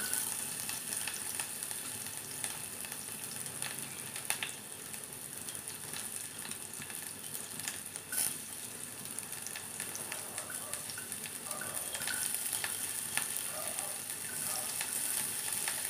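Chopped onion frying in hot oil in an aluminium pressure-cooker pot: a steady sizzle with scattered crackles and a few sharper pops.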